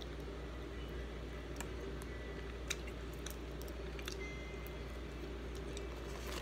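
Scattered faint clicks and small cracks of crawfish shells being peeled apart by hand, over a steady low hum.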